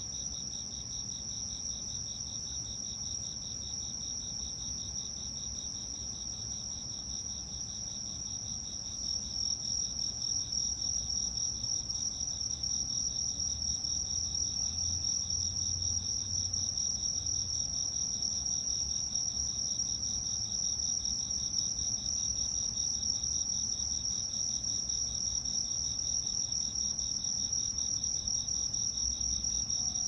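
Autumn insects singing in a continuous chorus: a steady high trill with a lower, pulsing trill beneath it. The chorus grows louder about nine seconds in.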